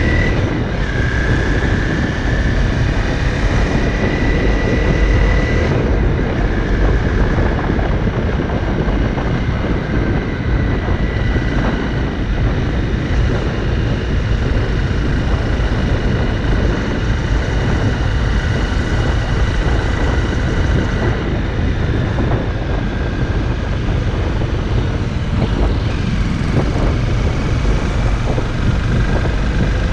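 Honda CRF motorcycle running steadily at riding speed, with wind buffeting the microphone and drowning much of the engine.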